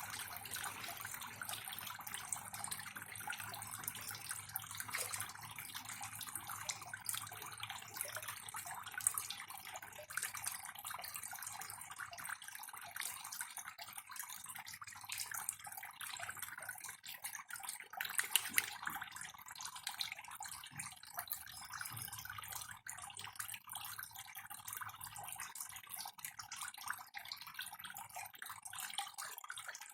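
Water trickling and splashing steadily, with a dense patter of small drips and pops and a few louder splashes about nine and eighteen seconds in.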